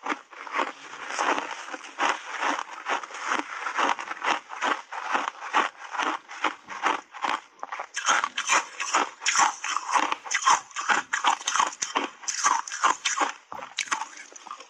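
Shaved ice coated in matcha powder crunched and chewed close to a clip-on microphone: a steady run of crisp crunches, about three a second, louder from about eight seconds in.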